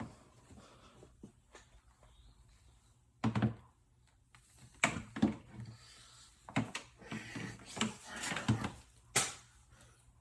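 Handling noises as a power cord and tools are worked with: a string of separate knocks and clunks, with rustling between them in the later part.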